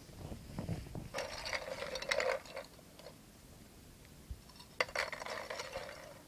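Small hard objects, a handful of little orange balls, rattling and clattering together in a hand and against a bowl, in two bursts of about a second and a half each, after a low rumble of handling.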